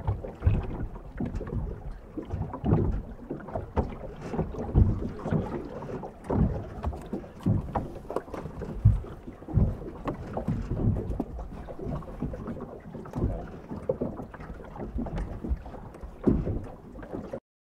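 Small waves lapping and sloshing around a camera held at the water's surface, heard as irregular low thumps and swells, with some wind on the microphone.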